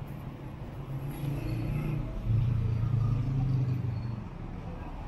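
City street traffic, with one motor vehicle's engine passing close: a low hum that swells suddenly a little over two seconds in, holds for a couple of seconds, then fades away.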